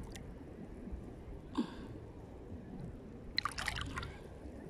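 Small splashes and drips of shallow seawater as a hand gropes among rocks in the water, with one splash about a second and a half in and a quick run of splashes and drips a little past the middle, over a low steady rumble.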